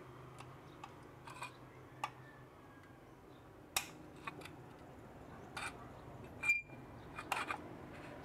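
Locking pliers and a screwdriver clicking and clinking against the metal parts of an LPG stove burner as they are handled: scattered light metallic clicks, the sharpest near the middle and again about two-thirds through, the second with a short ring.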